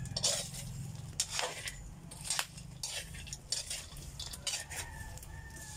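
A metal spoon stirring and scraping dried cacao beans in a black pan as they dry-roast over a wood fire: irregular scrapes and clinks of spoon and beans against the pan, with a low rumble underneath.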